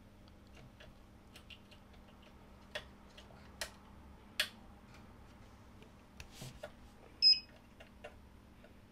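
A few faint clicks and taps of test probes against the connector pins and circuit board, then one short high multimeter continuity beep about seven seconds in, signalling that the two probed points are connected.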